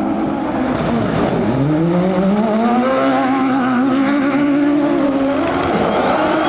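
Turbocharged 939 cc Ford engine of a Buggy 1600 autocross car at racing speed: the revs drop about a second in, climb and hold high, then dip briefly near the end and rise again.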